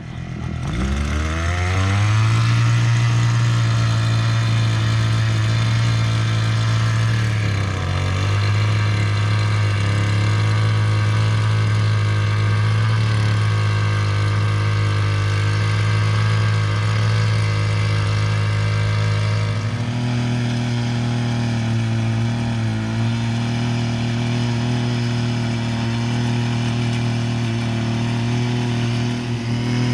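Small two-stroke engine of an Earthquake mini cultivator revving up in the first couple of seconds, then running steadily at high speed. Its note changes about twenty seconds in.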